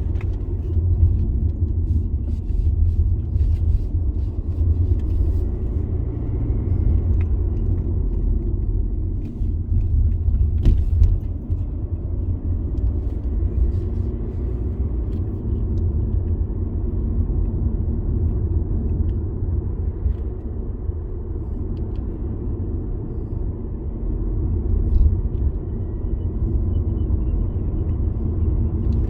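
Car driving along a road: a steady low rumble of engine and tyre noise, with a few brief clicks and knocks.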